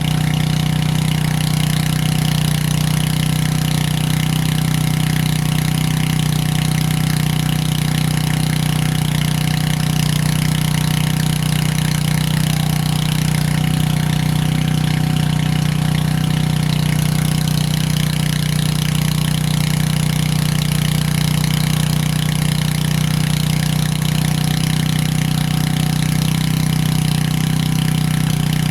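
A Predator gas-powered water transfer pump's small engine running steadily at one constant speed while pumping water.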